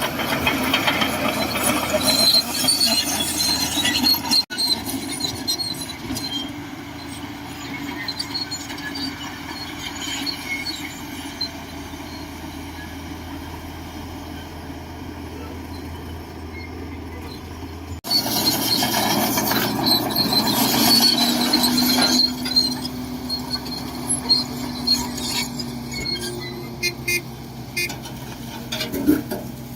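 Shantui DH17C2 crawler bulldozer working, its diesel engine running steadily with high metallic squeaks over it. The sound changes abruptly about four seconds in and again about eighteen seconds in, louder after the second change.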